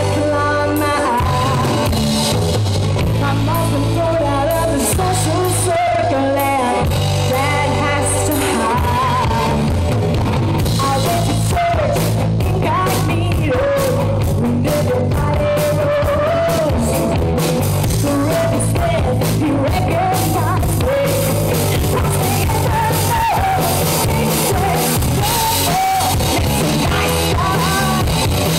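Live rock band playing loudly: a singer over electric guitar, bass and drum kit, heard through a phone's microphone.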